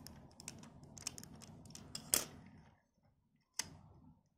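Light plastic clicks and taps as a small 1:18-scale action figure's joints are bent and it is fitted into a plastic toy go-kart, with a louder click about two seconds in and another near the end.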